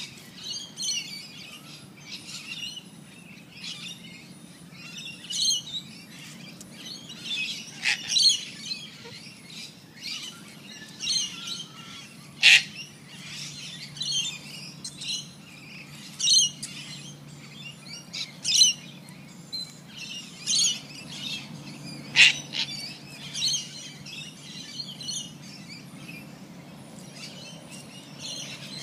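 Background birds chirping and calling in short, repeated phrases, over a steady low hum. Twice a sharp, loud click stands out, about twelve seconds in and again about ten seconds later.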